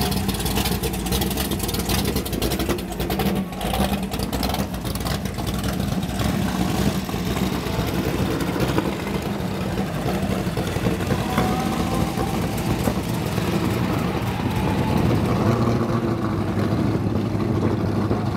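Engines of a slow procession of hot rods and classic cars running at low revs as they roll past, a steady rumble throughout. A rapid crackling exhaust fills the first few seconds.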